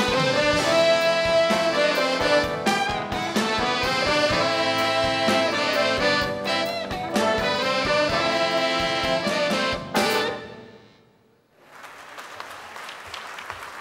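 Live band playing jazzy walk-on music with horns prominent; it stops about ten seconds in. Audience applause follows.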